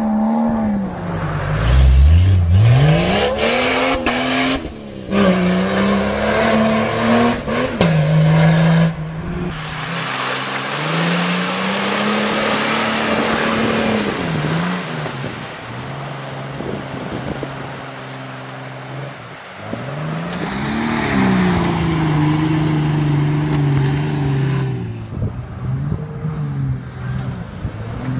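Jeep Cherokee XJ engines revving up and down hard under load off road. Midway there is a rushing hiss of water spray and spinning tyres as a Jeep ploughs through a flooded, muddy track.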